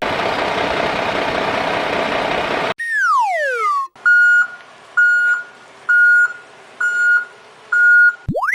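A vehicle reversing alarm beeping five times, about once a second, over a low steady hum. Before it come a steady rushing noise lasting about two and a half seconds and a falling whistle-like tone, and a quick rising tone comes at the very end.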